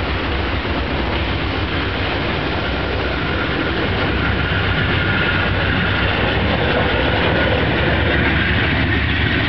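Amtrak passenger coaches (Horizon and Amfleet cars) passing close at speed: a steady, loud rush of steel wheels on rail with a low rumble, growing a little louder about halfway through.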